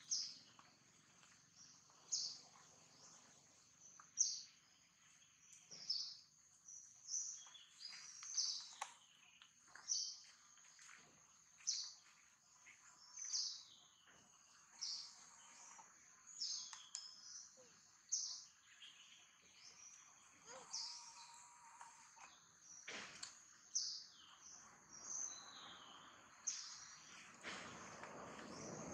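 A bird calling over and over in short, high chirps, about one every second or so, over a faint outdoor background.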